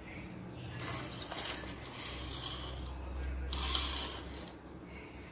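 Two bursts of rubbing, scraping noise, the second and louder about three and a half seconds in, over a low rumble.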